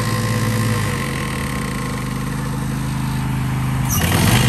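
Simplicity Courier zero-turn mower engine running steadily while being tried out after a blade-spindle replacement. About four seconds in, the engine sound dips and glides down in pitch.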